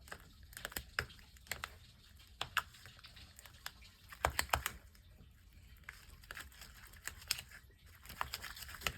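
Slime being stirred with a spatula in a small mixing bowl: irregular soft clicks and sticky ticks, with a louder cluster about four seconds in.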